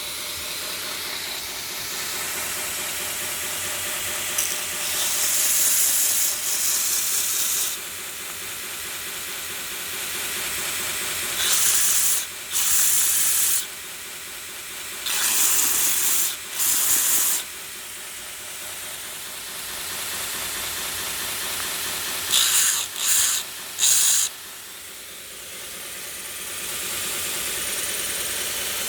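Belt grinder with a 96 x 2 inch belt running steadily on its VFD-driven 1 hp three-phase motor, with several louder, brighter bursts of one to two seconds each as work is pressed against the belt.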